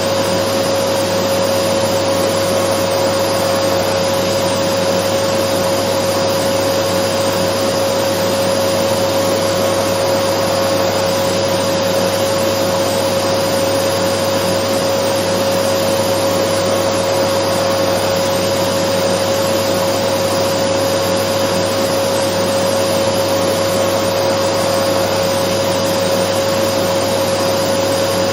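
Dyson vacuum cleaner running steadily: a constant rushing noise with a steady whining tone over it.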